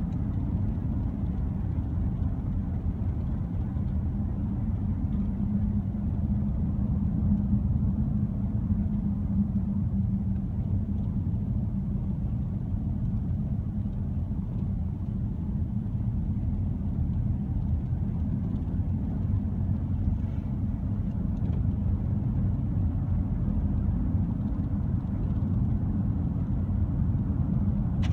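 Moving car heard from inside the cabin: a steady low rumble that holds an even level throughout.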